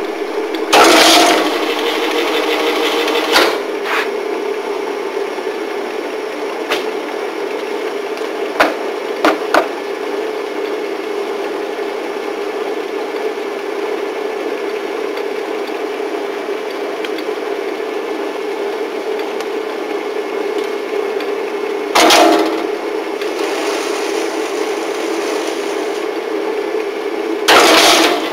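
F&G spiral binding machine running with a steady motor hum, with scattered short clicks in its first seconds and three loud bursts of mechanical noise, each about a second long: one near the start and two near the end.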